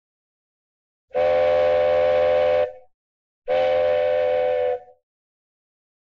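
Cartoon train whistle sound effect: two steady blasts, each a little over a second long, less than a second apart.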